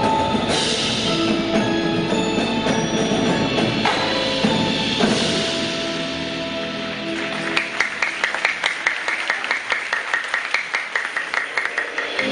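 Indoor drumline and front ensemble playing: held mallet-keyboard notes at first, then from a little past halfway a fast, even run of sharp percussion strokes, about four or five a second.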